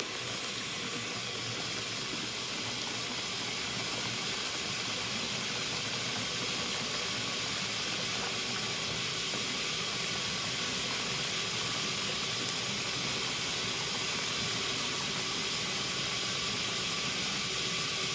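Washing machine filling with water: a steady hiss of water running into the tub.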